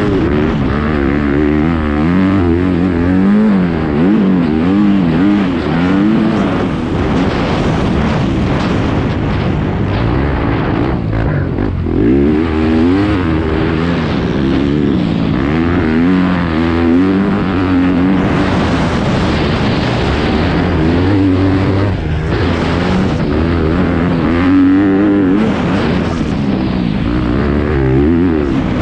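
Yamaha dirt bike engine revving hard, its pitch rising and falling over and over as the rider accelerates, shifts and backs off through the course, heard from a helmet-mounted camera with a constant rush of wind and noise.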